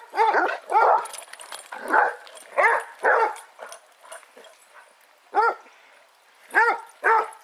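A basset hound barking: about eight short, loud barks, five in quick succession, then a pause of about two seconds and three more.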